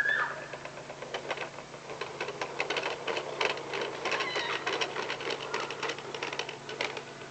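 Child's toy push lawnmower clattering as it is pushed along, a rapid, irregular run of plastic clicks from its turning mechanism.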